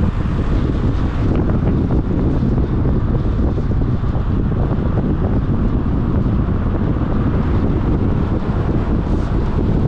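Steady low rumble of wind and road noise from a moving car, with wind buffeting the microphone.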